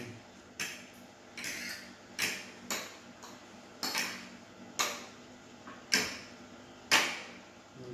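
A spoon clinking against the side of a bowl, about ten separate strikes at roughly one a second, as a chili mixture is stirred.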